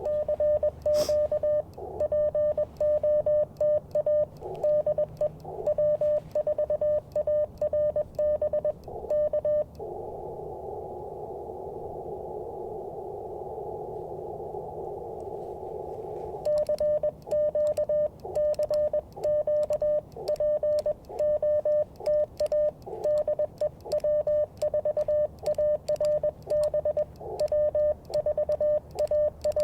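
Morse code (CW) from an Icom IC-705 transceiver: a single steady beep pitch keyed on and off at a brisk sending speed. About ten seconds in, the keying stops and a narrow band of receiver hiss takes over for about six seconds, then the Morse resumes through the end.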